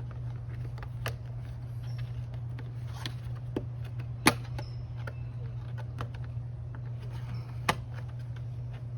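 Four separate sharp plastic clicks and knocks, the loudest about four seconds in, as a plastic cap is worked and pressed onto a motorcycle luggage-rack mounting plate over a steady low hum.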